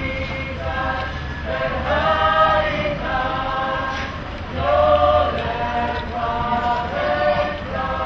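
A choir singing slow, held notes that step from pitch to pitch, each lasting about half a second to a second, with no instruments heard. A low steady hum runs underneath.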